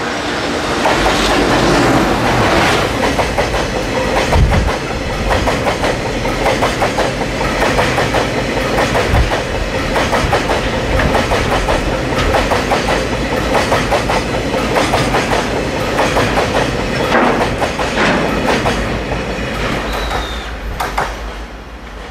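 JR Freight EF210 electric locomotive and a long train of tank wagons passing close by, the wheels clattering in a dense rhythm over the rail joints. The clatter dies away near the end as the last wagon goes by.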